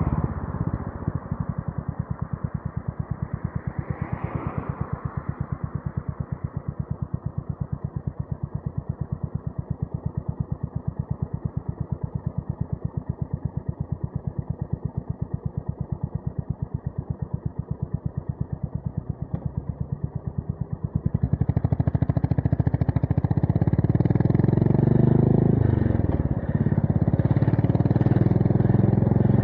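Honda GB350S single-cylinder engine with a MILLER Spitfire slip-on exhaust idling, each exhaust pulse heard as an even beat. About 21 seconds in it gets louder as the bike pulls away and revs rise, with one brief drop in revs around 26 seconds, then it runs on at the higher level.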